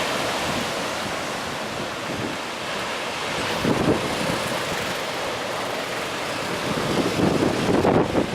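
Heavy post-typhoon surf breaking on the shore, with wind buffeting the microphone. The surge swells about halfway through and again near the end.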